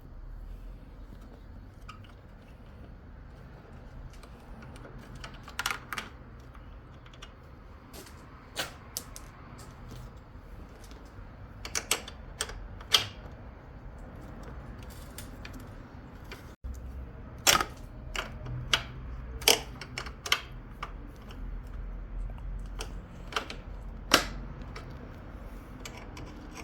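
Irregular sharp metallic clicks and clinks of hand tools working on the bolts of a motorcycle's tail fairing, an Allen key and toolkit wrench against metal. They come a few seconds apart at first and more often in the second half.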